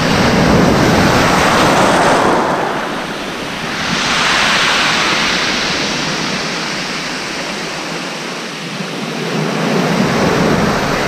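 Sea waves breaking and washing up a shingle beach, the surf swelling and fading in three surges: at the start, about four seconds in, and near the end.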